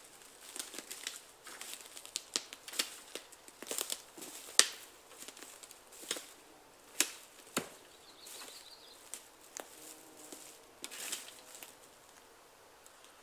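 Footsteps crunching and snapping through dry twigs and dead branches on the forest floor, an irregular series of cracks and rustles, the sharpest about four and a half and seven seconds in.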